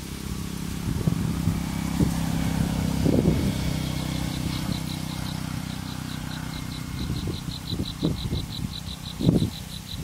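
A steady low engine hum from a motor vehicle, fading out after about seven seconds. From about four seconds in, an insect chirps in an even pulse of about five a second. A few low thumps, mostly near the end.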